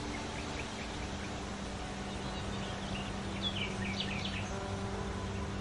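Songbirds chirping in short, quick downward-sweeping notes, in a brief cluster near the start and a busier run about halfway through, over a steady low hum.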